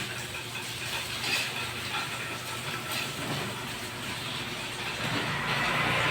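Eating noises, chewing with a few short clicks, over a steady low hum.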